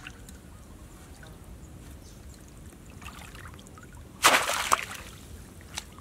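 Shallow floodwater splashing as a bamboo plunge basket fish trap is worked in it: faint sloshing, then one loud splash about four seconds in as the trap is thrust back down into the water.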